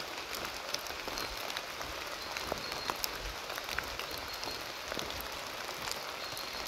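Rain falling on forest leaves and leaf litter: a steady patter with many small individual drop ticks, and a few short high notes now and then.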